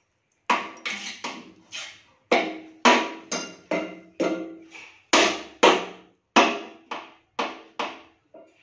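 A red plastic gas lighter banged again and again by a baby against the burner of a stainless steel gas stove. About twenty sharp knocks come at an uneven two or three a second, starting about half a second in, each with a short metallic ring.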